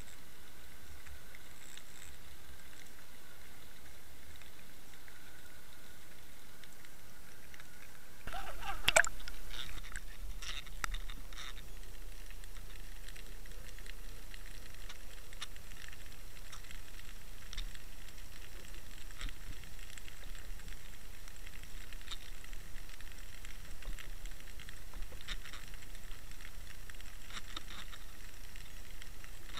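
Underwater audio from a camera housing on a fishing line: a steady hiss. About eight seconds in it changes to a low rumble with a cluster of knocks, then scattered short clicks.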